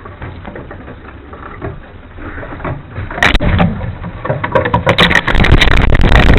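Clattering and rushing noise picked up by a small camera strapped to a pigeon: faint rustling at first, then loud from about three seconds in, building to a heavy buffeting rumble near the end, typical of wing beats and wind over the camera.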